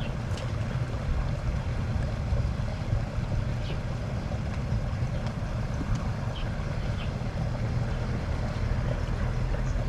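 Steady low rumbling noise of wind on the microphone, with a few faint short high chirps.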